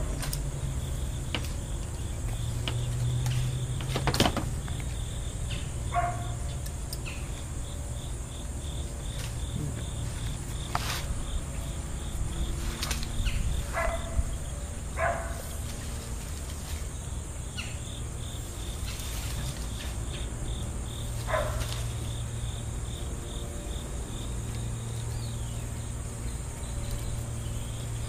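Crickets chirping steadily, with a dozen or so sharp clicks scattered through, the loudest about four seconds in.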